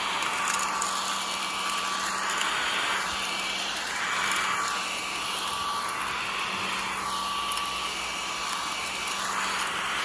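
Mini desktop vacuum cleaner running steadily, a constant motor hum and whine with rushing air that swells and fades every two seconds or so as it is pushed back and forth picking up crumbs from a wooden tabletop.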